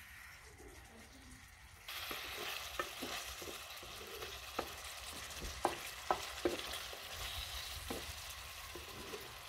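Goat liver frying in a spiced sauce in a metal pan, sizzling steadily from an abrupt start about two seconds in. A wooden spoon stirs it, knocking sharply against the pan several times at uneven intervals.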